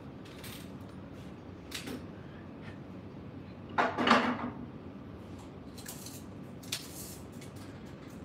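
Handling noises of tools and parts at a workbench: scattered clicks and knocks, with one louder clatter about four seconds in.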